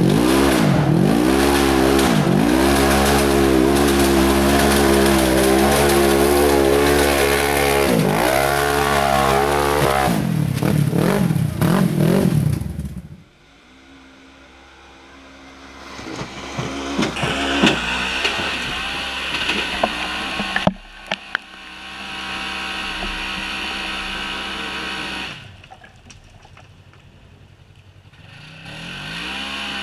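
Unlimited-class side-by-side race buggy's engine revving hard as it climbs, its pitch dropping and rising again every second or two, then cutting off suddenly about halfway through. After that a second side-by-side's engine is heard more quietly, running and revving with a few sharp knocks.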